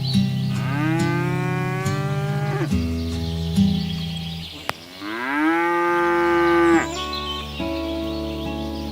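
Cows mooing: two long moos, each rising in pitch and then holding, the first about half a second in and the second around five seconds in, with steady background music underneath.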